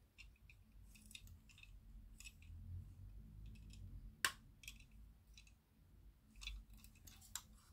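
Near silence with faint, scattered small clicks and taps, and one sharper click about four seconds in.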